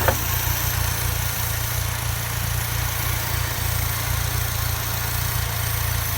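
A car engine idling steadily, with a single click just at the start.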